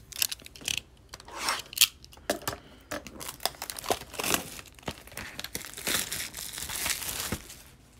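Clear plastic shrink-wrap being torn and peeled off a sealed O-Pee-Chee Platinum hockey hobby box, an irregular run of crinkling and crackling that grows busier past the middle and stops near the end.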